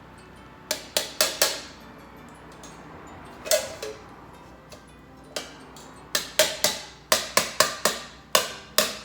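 Sharp woody knocks and cracks: a few single ones, then quick clusters of several in a row near the end, each with a short ringing decay.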